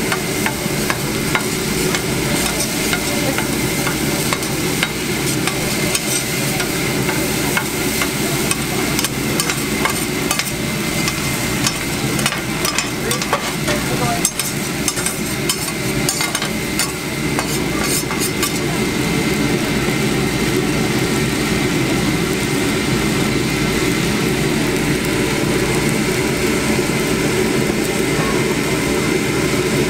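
Egg fried rice sizzling on a flat steel teppanyaki griddle while two metal spatulas scrape, toss and clack against the hot plate. The scraping and clicks thin out past the halfway point, leaving a steadier sizzle.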